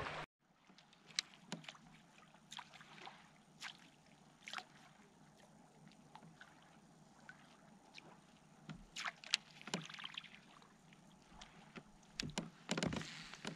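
Faint water lapping against a kayak's hull, with scattered light clicks and knocks on the boat, a few louder ones near the end.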